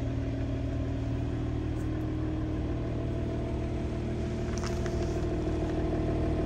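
Steady low hum of the Mercedes-AMG GT53's 3.0-litre turbocharged inline-six idling.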